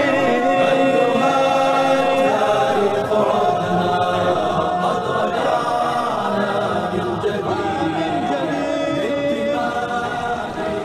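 A choir singing an Arabic nasheed, with voices holding long notes.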